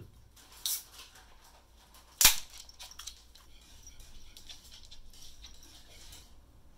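Aluminium beer can being cracked open: a brief, softer sound under a second in, then a loud, sharp crack as the pull tab breaks the seal about two seconds in. After that comes the soft, faint hiss of beer being poured from the can into a glass.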